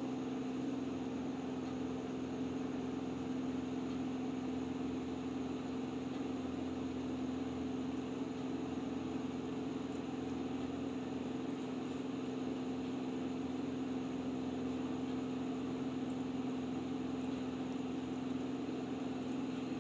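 Steady mechanical hum at a constant low pitch, unchanging throughout.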